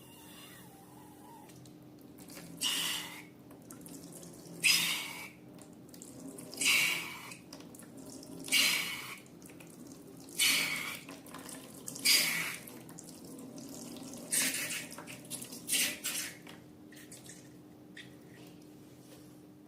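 Wet slime mixture being worked, making short wet bursts of sound about every two seconds, fainter near the end.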